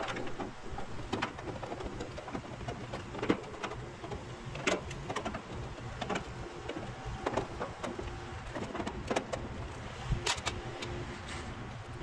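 Scattered clicks and light metal knocks from a nut driver taking the screws out of the sheet-metal top panel of a Goodman heat pump outdoor unit, and from the panel being handled, over a steady low hum.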